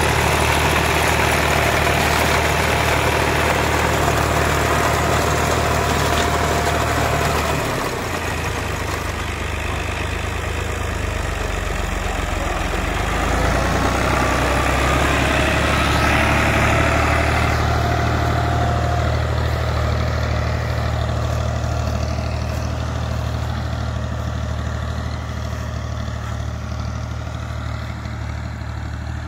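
New Holland Ghazi tractor's diesel engine running steadily as it drives a front-mounted reaper binder cutting wheat. The engine note shifts about eight seconds in and grows fainter near the end as the tractor moves away.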